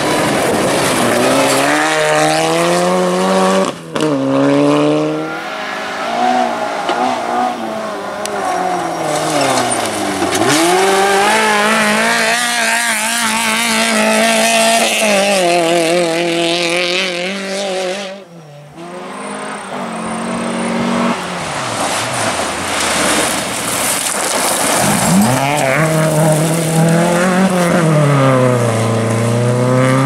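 Rally cars at full throttle on gravel stages, one after another, beginning with a Mitsubishi Lancer Evolution. Engine pitch climbs high through the gears and drops when the driver lifts, over the hiss of tyres on loose gravel. The sound cuts to a different car about four seconds in and again near eighteen seconds.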